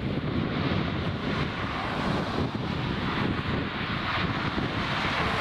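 Jet engines of a Boeing 777 freighter during takeoff: a steady rushing noise, with a higher hiss that grows stronger from a second or two in.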